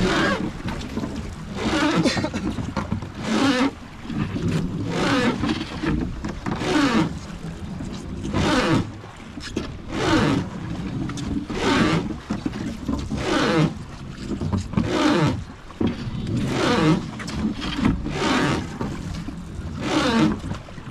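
Oars being worked on a wooden Hozugawa river boat: a rhythmic stroke about every 1.7 seconds, each with a bending, pitched strained sound, about a dozen strokes in all, from boatmen rowing hard.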